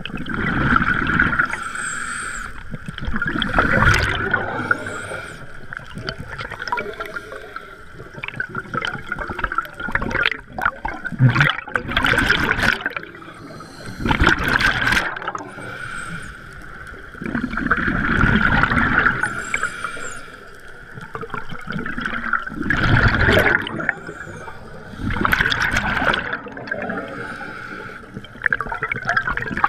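Scuba regulator breathing heard underwater: exhaled air gurgles out in loud bubbling surges every few seconds over a steady high tone.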